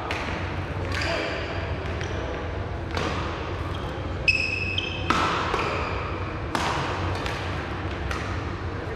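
Badminton rally: sharp racket strikes on the shuttlecock every second or two, echoing in a large sports hall, with a brief shoe squeak on the court floor about four seconds in.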